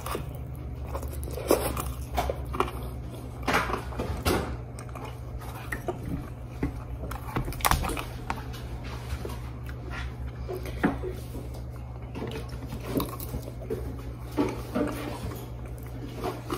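A person chewing a mouthful of fries in brown gravy with bacon and melted mozzarella close to the microphone, with irregular, uneven chewing clicks. A steady low hum sits underneath.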